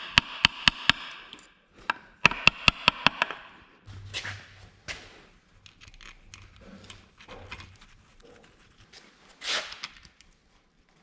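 Hand ratchet clicking in two quick runs of sharp, evenly spaced clicks, about five a second, as the rear seal housing bolts are run down. Lighter scrapes and knocks of tools on metal follow, with one louder scrape near the end.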